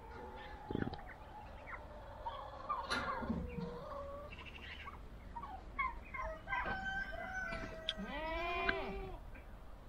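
Farmyard poultry calling: scattered clucks and short calls, then a longer arched call about eight seconds in.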